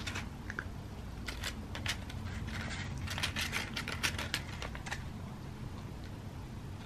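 A cat crunching dry kibble: a run of irregular crisp crunches, thickest in the middle, over a low steady room hum.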